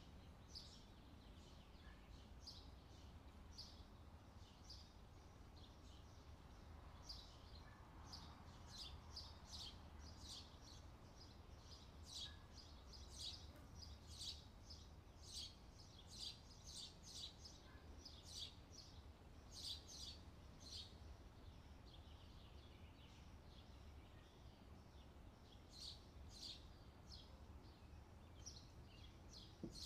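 Faint scratching of a pen on paper in short, irregular strokes as cursive capital letters are written, over a low steady hum.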